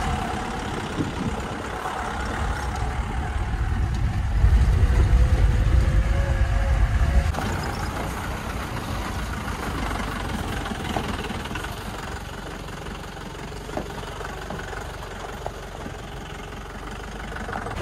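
A vehicle driving on a rough country road, with a steady rumble of engine and road noise and a few scattered knocks. The rumble grows heaviest a few seconds in and eases after about seven seconds.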